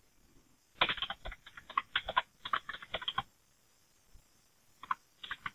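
Typing on a computer keyboard: a quick run of keystrokes lasting about two and a half seconds, a pause, then a few more keystrokes near the end.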